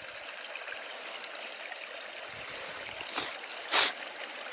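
Small stream of water running steadily, with two short sharp noises a little past three seconds in, the second one louder.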